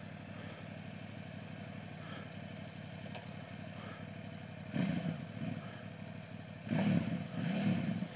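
Off-road motorcycle engine ticking over at low revs, then revved hard in two surges, about five seconds in and again from about seven seconds, as the bike is worked through a rutted mud climb.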